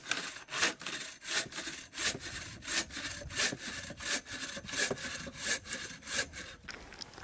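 Bow saw cutting through a dry firewood log, steady back-and-forth strokes about three a second, stopping near the end.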